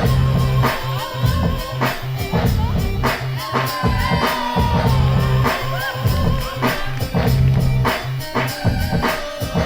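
Loud hip-hop break music with a steady drum beat and a bass line, with snatches of a sung vocal.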